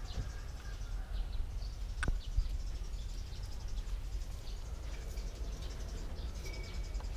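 Outdoor ambience: faint, scattered high chirps of birds and insects over a steady low rumble, with one sharp click about two seconds in.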